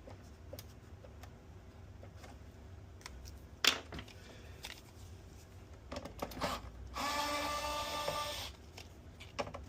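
Small clicks and taps of handling, with one sharp click a little past a third of the way in, then an electric screwdriver runs with a steady whine for about a second and a half near the end, backing out a screw from a PS5's casing.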